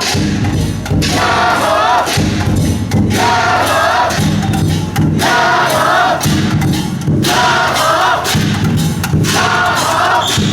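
A team of dragon-boat pullers chanting together in loud call-like phrases about every two seconds, over steady drum thumps and metallic strikes, as they turn the boat in a rhythmic festival routine.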